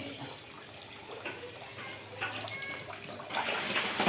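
Pond water splashing and sloshing around a person wading and grabbing at fish, growing louder about three seconds in.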